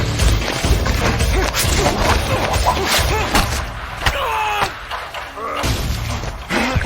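Movie fight-scene sound effects: a quick run of punch and kick impacts and heavy thuds, over a low music score.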